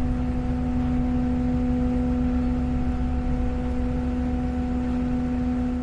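Ship's machinery running steadily while docking: a constant low hum over a deep rumble, with no change through the stretch.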